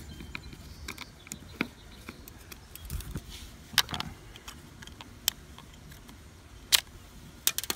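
Scattered light clicks and taps of a Flirc aluminium Raspberry Pi case and its black plastic base being handled and pulled apart, the sharpest about a second before the end.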